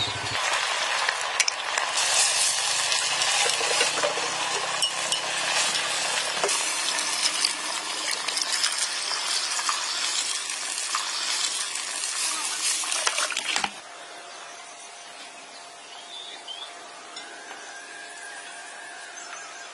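A pot of pig's feet and papaya soup bubbling over a wood fire, with clicks and clinks of chopsticks stirring against the pot. About two-thirds of the way through it cuts off suddenly, leaving a much quieter background with a faint steady hum.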